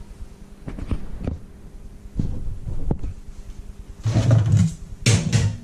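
Kitchen handling noises on a tiled countertop: a few light knocks and clicks, then two louder rustling, scraping bursts about four and five seconds in as the chopped garlic and ginger on a plastic cutting board and their container are handled.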